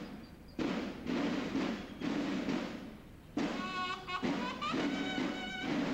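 School drum-and-bugle band (banda de guerra) playing for the flag: drums beating in repeated strikes and rolls, joined about three and a half seconds in by bugles sounding held notes.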